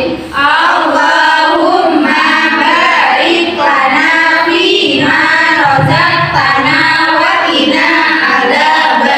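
A group of women's voices recite the Islamic prayer before eating in unison, in a sing-song chant.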